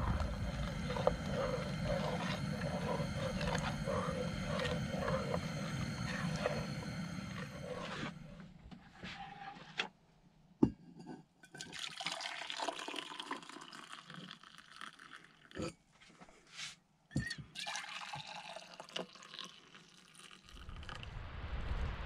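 A steady hum for the first several seconds, then hot chocolate being poured from a saucepan into insulated metal mugs, with liquid splashing and a few sharp clicks of metal and lids.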